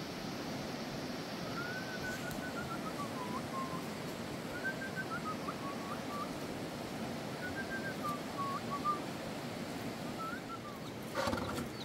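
Thin whistling in four short phrases, each rising and then falling, over a steady background hiss.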